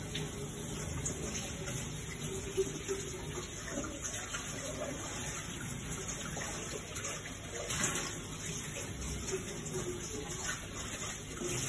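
Water running from a kitchen tap into a stainless steel bowl being rinsed in a steel sink, a steady splashing, with a couple of brief knocks.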